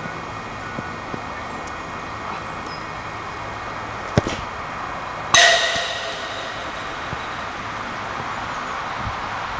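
A football kicked with a sharp thump, then about a second later a louder clang as the ball hits metal, ringing briefly as it fades.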